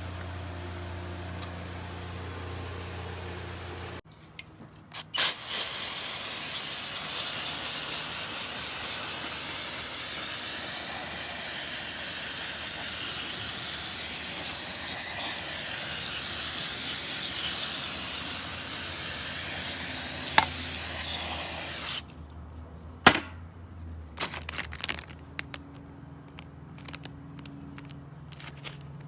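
Long, steady hiss of a cleaning spray directed at transmission valve body parts, starting about five seconds in and cutting off abruptly around twenty-two seconds in. A few sharp clicks and knocks of the parts being handled come before and after it.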